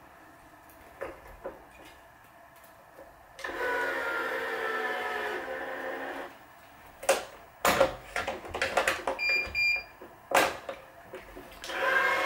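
Electronic racquet-stringing tension head whirring as it pulls a main string to tension, its pitch sinking slightly. It is followed by a run of clicks and knocks as the string and clamp are handled, two short beeps, and the motor starting up again near the end.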